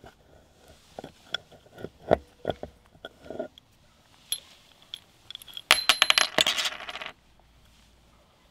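Small hard metal objects clinking: scattered light clicks and taps, then a dense, ringing metallic jingle and clatter lasting about a second and a half, like coins spilling.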